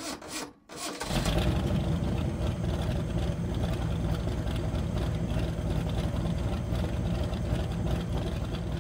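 A car engine idling steadily with a low rumble, coming in about a second in.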